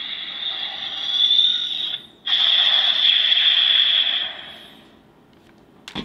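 Electronic sound effect from the Mumeiken Kyomu toy sword's small speaker: a sustained whirring effect with a brief break about two seconds in, then fading out. A sharp plastic click comes near the end.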